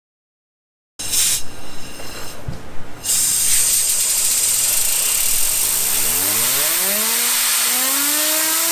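Compressed air from an air-compressor blow nozzle hissing, starting about a second in with a few short blasts and then held as a steady loud blast. The air drives a fidget spinner whose whine rises steadily in pitch as it spins up over the last few seconds.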